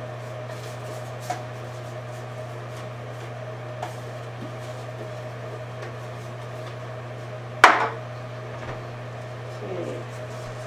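A sharp clunk about three-quarters of the way through as a metal bread loaf pan is set down on a wooden table, with a couple of faint taps before it, over a steady low hum.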